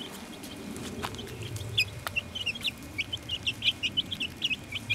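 A flock of young chickens peeping, short high chirps that come thicker and louder from about two seconds in, several a second.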